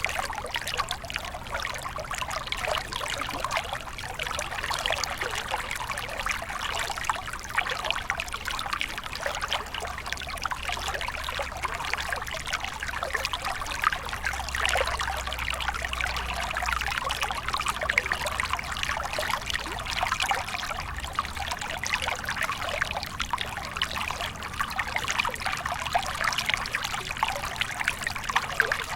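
Small stream flowing and trickling steadily, with a continuous babble of water over stones.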